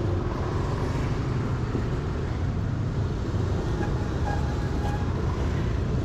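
Motorbike engine running amid city street traffic, a steady low rumble.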